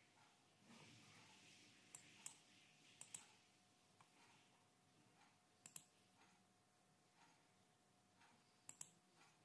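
Faint clicks of a computer pointer button, in quick pairs four times over, against a faint steady hum.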